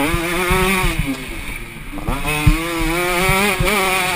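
Dirt bike engine heard on board under hard riding: the revs rise and fall, ease off for about a second, then pick up again and hold, with short low thumps from the rough track.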